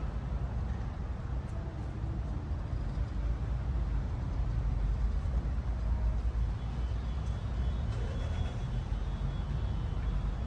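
City traffic: a steady low rumble of passing vehicles.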